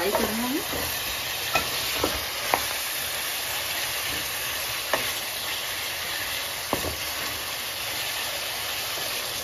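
Marinated chicken pieces sizzling steadily as they fry in hot mustard oil in a metal kadai, with a wooden spatula knocking sharply against the pan about six times as the pieces are stirred.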